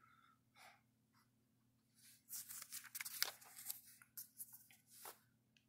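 Paper pages of an old 1946 booklet rustling and crackling as a page is turned by hand, a run of crisp crackles starting about two seconds in and lasting about three seconds.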